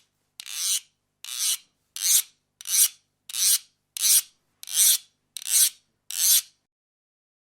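A güiro scraped with a stick in slow, even strokes, about one every 0.7 seconds, nine strokes in all, each swelling as it goes. The strokes stop about two-thirds of the way in.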